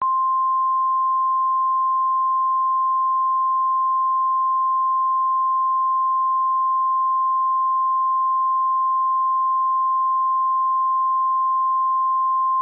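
Mock Emergency Alert System attention tone: one steady, unbroken high-pitched beep at a single pitch that starts abruptly.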